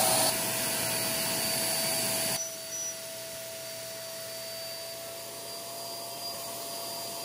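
A 600 W electric air pump runs with a steady high whine and a rush of air as it inflates an air mattress. The sound drops abruptly in loudness a fraction of a second in and again about two and a half seconds in.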